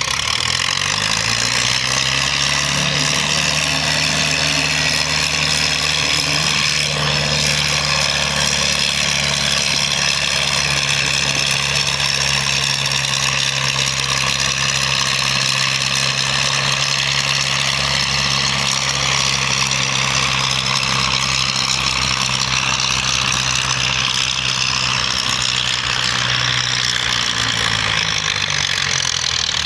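Vintage farm tractor engine working under heavy load as it pulls a weight-transfer sled. It revs up at the start, holds a steady pitch through the pull, then drops away near the end as the pull finishes.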